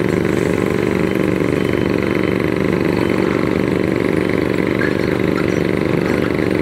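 Heavy diesel engine of construction machinery running steadily at an even pitch, with no strikes or bangs.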